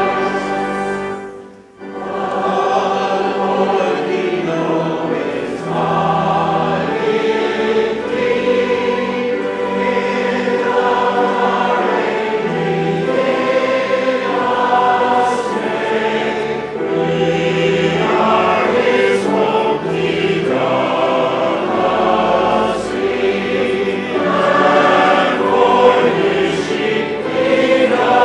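Church choir singing a sacred piece in several parts, with a brief pause between phrases about a second and a half in.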